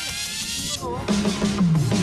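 Electronic background music: rising synth sweeps fade out, then a low bass note slides steadily downward in the second half.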